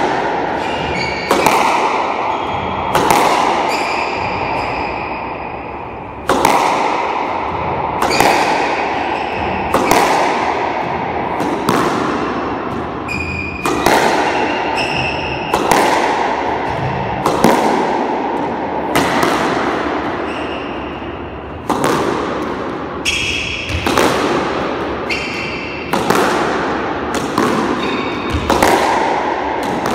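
Squash ball struck with a racket in a solo straight-drive drill, a sharp, echoing crack about every second and a half as it is hit and rebounds off the front wall. Brief high squeaks of court shoes on the wooden floor fall between some of the shots.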